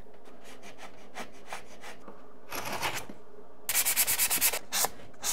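Sanding sponge rubbed back and forth on dried drywall joint compound in an inside corner. Faint scraping strokes come first, then a louder stroke about halfway in and a quick run of strong rubbing strokes near the end.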